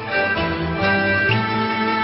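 Instrumental accompaniment of a Cantonese opera song, the melody carried on bowed strings over plucked strings, moving from note to note every fraction of a second.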